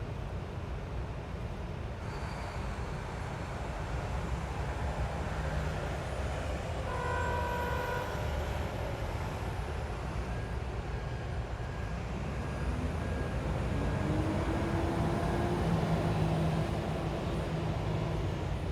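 City street traffic: a steady rumble of passing cars, buses and trucks, with a short pitched tone like a horn about seven seconds in and a heavy engine rising in pitch as a vehicle pulls away in the second half.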